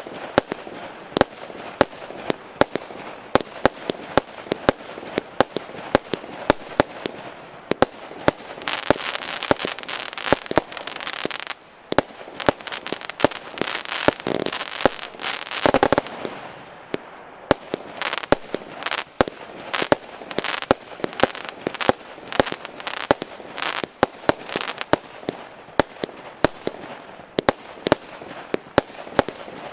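A 200-shot, 20 mm consumer fireworks battery (cake) firing in quick succession: sharp reports of shots and bursting effects, one after another. About nine seconds in, the firing thickens into a denser crackling stretch that lasts until about sixteen seconds in.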